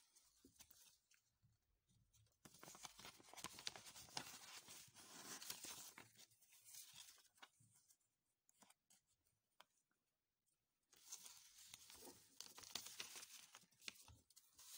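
Faint rustling and scraping of paper and card being handled, in two stretches of a few seconds each with a quiet gap between them.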